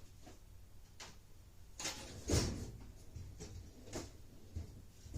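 Tools being handled and set down: a few scattered clicks and knocks, the loudest a heavy thump about two and a half seconds in.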